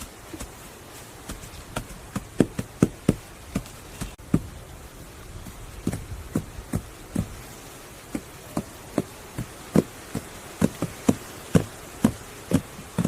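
Irregular series of sharp knocks, like wood being struck or tapped during hand building work, roughly one or two a second, over a faint steady buzz of insects.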